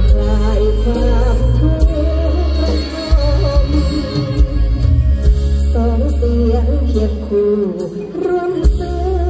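Loud Thai Isan stage-show band music over a concert sound system, with heavy bass, regular drum hits and a wavering melody line with vibrato.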